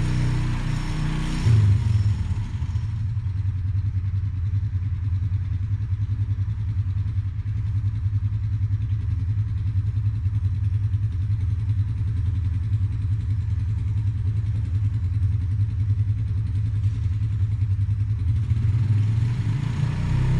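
ATV engine running steadily, a low drone with a fast pulse that sets in about a second and a half in, as it tows a spreader.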